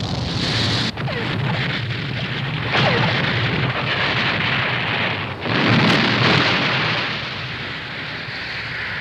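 Animated sound effects of a building exploding: a continuous rumbling din of blasts and fire, with fresh blasts breaking in near the start, about three seconds in and about five and a half seconds in, the last the loudest.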